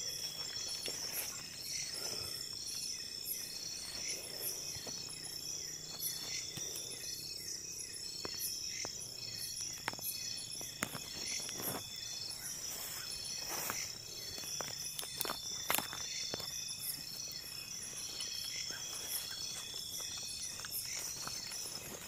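Night insect chorus of crickets and similar insects: a steady high trill with a pulsing chirp repeating about twice a second. Scattered short rustles and knocks from someone moving through undergrowth are mixed in.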